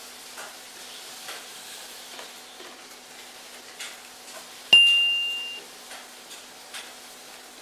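Faint clicks of chopsticks against a paper ramen cup and of eating, then nearly five seconds in a single bright ding: one clear high tone that rings and fades within about a second, an edited-in chime for an on-screen caption popping up.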